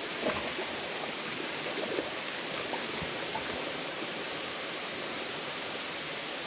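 Waterfall rushing steadily, with a couple of faint knocks in the first two seconds.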